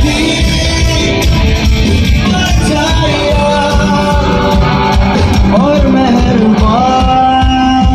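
Live band and singer performing through a PA system: loud amplified music with a steady beat and a sung melody.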